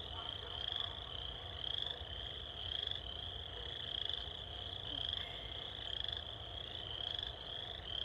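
Small animal calling: a short high trill repeated about once a second, with a steady low rumble underneath.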